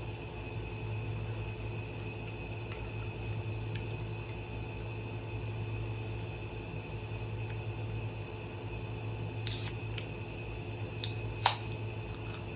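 Quiet eating and utensil sounds at a meal of baked goat, potatoes and asparagus: scattered small clicks, a short scrape-like burst about nine and a half seconds in, and a sharp clink of cutlery on a plate about eleven and a half seconds in, over a steady low hum.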